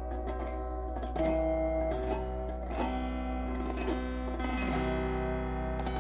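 Autoharp being strummed: ringing chords that change every second or two.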